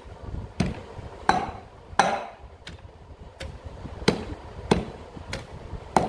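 Metal pestle pounding chilli paste in an aluminium mortar: a steady beat of about nine dull strikes, roughly one every two-thirds of a second, some with a brief metallic ring from the bowl.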